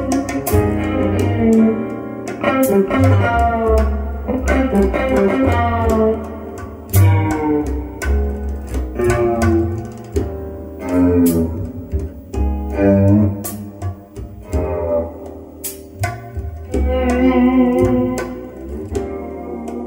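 Jazz guitar solo of plucked single-note runs over a walking bass line and light drums, from a vinyl record played back through hi-fi loudspeakers in a small room.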